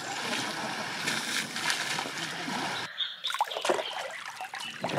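Water splashing as pelicans bathe in a pool, one beating its wings in the water. It is a steady wash of splashing at first, then, after an abrupt break about three seconds in, separate splashes.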